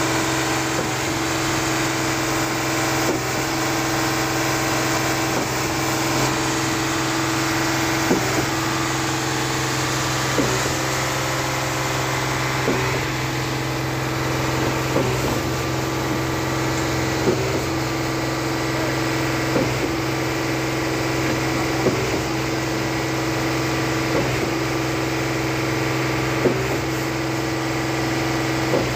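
Diesel engine of a concrete line pump running steadily, with a sharp knock about every two seconds as the pump changes stroke while pumping concrete.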